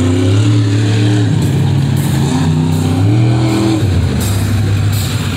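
Monster truck engine revving hard on its run, its pitch climbing steadily twice and dropping back in between.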